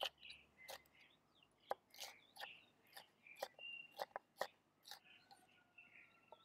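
Chef's knife chopping a red bell pepper on a wooden cutting board: a dozen or so quiet, sharp taps of the blade on the board at an uneven pace. Birds chirp faintly behind it.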